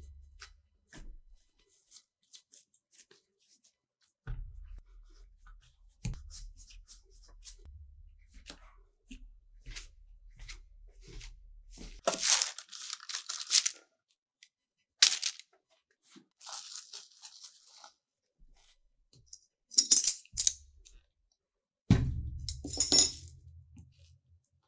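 Kitchen handling sounds: scattered light clicks and taps, with short, loud rustling, crinkling bursts about halfway through, again a few seconds later, and twice near the end.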